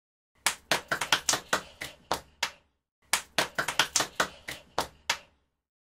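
Hands clapping: two bursts of about a dozen sharp claps each, separated by a half-second pause.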